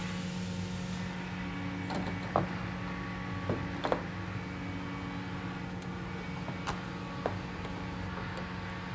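A few faint, sharp metallic clicks and taps as a steel C-clamp, bolt and washers are handled and fitted up under a pickup's bed rail, over a steady low hum.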